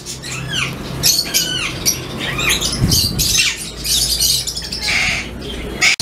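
Many small cage birds chirping and calling at once, short high rising and falling calls overlapping one another, over a steady low hum.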